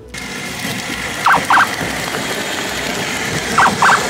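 Battery-powered Power Wheels Monster Jam ride-on toy truck driving along a concrete sidewalk: the steady whir and rattle of its electric motor and hard plastic wheels. Two pairs of short high squeaks stand out, about two seconds apart.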